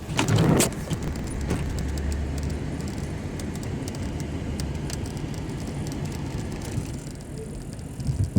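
A motor vehicle's engine running steadily, with a brief loud noise right at the start.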